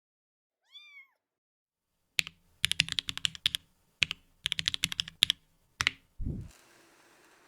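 A cat gives one short meow that rises and falls in pitch, then a mechanical keyboard is typed on in quick runs of clacking keystrokes. A single low thud follows near the end.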